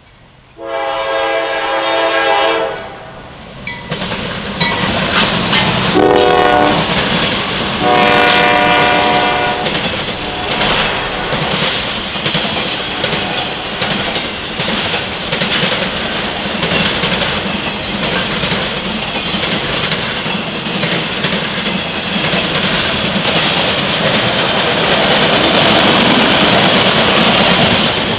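Freight locomotive horn sounding a long blast, a short one and another long one as the train approaches. The locomotives then pass and give way to the steady rumble and wheel clatter of a double-stack container train rolling by close at hand.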